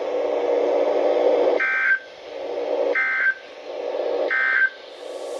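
Three short bursts of Emergency Alert System SAME digital data tones, about 1.3 s apart, marking the end of the alert message. A steady low hum from the weather radio broadcast fills the gaps between them.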